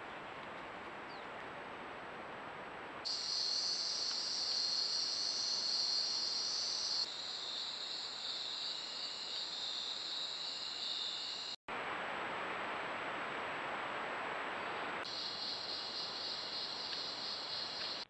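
Steady high-pitched insect chorus over a background hiss. It comes in abruptly about three seconds in, drops slightly in pitch partway through, breaks off at a sudden cut, leaving only hiss, and returns near the end.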